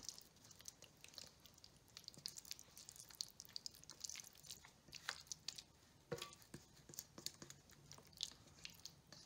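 Faint wet squishing and soft scraping as a thick spinach and ricotta filling is pushed out of a metal bowl with a silicone spatula, with scattered small clicks of the spatula against the bowl.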